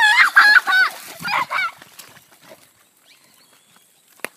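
Excited high-pitched shrieks from a child, several in quick succession, each rising and falling in pitch, over the first couple of seconds. A single sharp click comes near the end.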